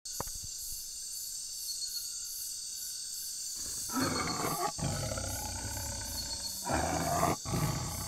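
A tiger roaring twice, about four and seven seconds in, as an intro sound effect over a steady hiss with a faint pulsing shimmer.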